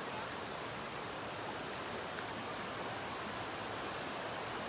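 Steady rushing of a river flowing past, an even outdoor water noise, with a couple of faint ticks.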